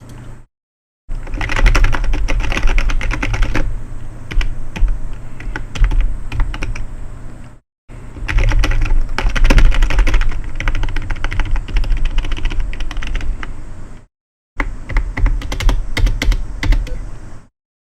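Fast typing on a BAKTH GKM015TJ0 membrane gaming keyboard: a dense run of key clicks, in three long bursts with brief full stops between them.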